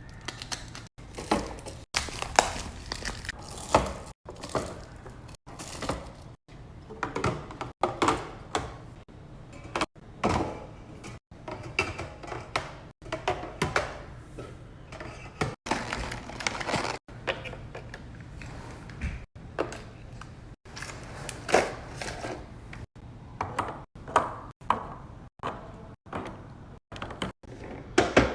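Repeated knocks, clacks and thuds of items and containers being handled and set down while a fridge is stocked and organised, broken every second or two by brief silences.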